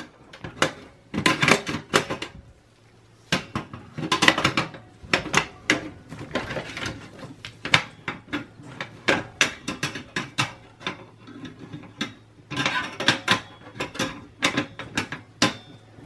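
Metal clicks, clanks and rattles of a 3.5-inch hard drive being slid into a steel drive cage and the cage being lifted and turned inside a desktop PC case, in repeated clusters of sharp clicks.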